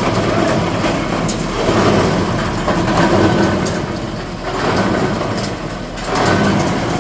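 38-inch plastic and rubber waste grinder running, a loud mechanical din that swells and eases every second or two, with scattered sharp clicks.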